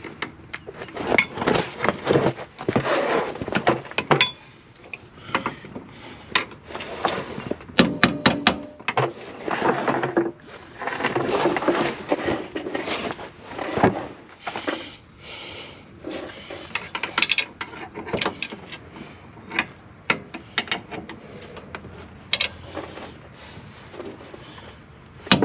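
Hand tools and metal car parts being worked during an axle replacement: irregular metallic clicks, clanks and scrapes, busiest in two stretches, early on and around the middle.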